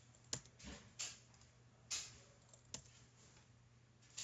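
About five separate computer mouse and keyboard clicks, roughly a second apart, faint over a low steady hum: the clicks of selecting objects and confirming entries in software.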